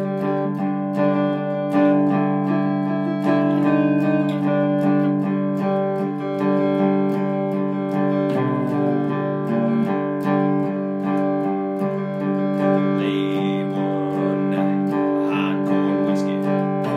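Cigar box guitar played slide style: picked notes over a steady drone of low strings, with notes sliding in pitch about halfway through.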